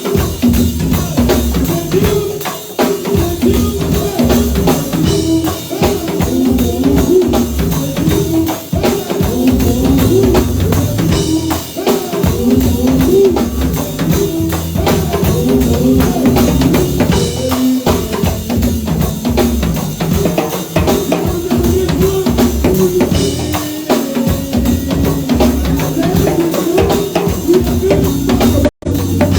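Live band playing an instrumental passage, with a drum kit keeping the beat under bass and other instruments. Near the end the sound cuts out for a split second, a dropout in the recording.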